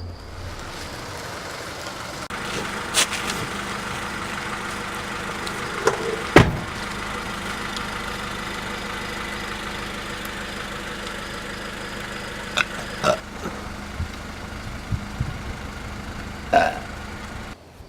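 A steady engine-like drone, broken about half a dozen times by sudden sharp sounds. It cuts off abruptly near the end.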